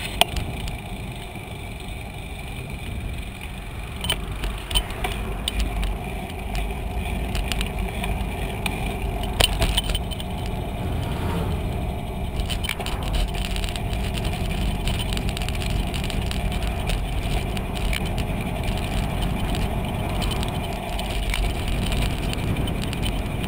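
Steady wind rumble on the microphone and tyre noise of a bicycle rolling along a paved trail, with sharp rattles from the bike and its camera mount over bumps, clustered about four seconds in and again near ten seconds.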